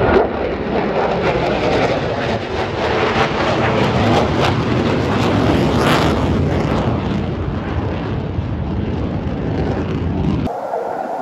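Twin-engine jet fighter flying an aerobatic display: loud jet roar across the sky, swelling to its loudest about midway. Near the end the low rumble drops away abruptly.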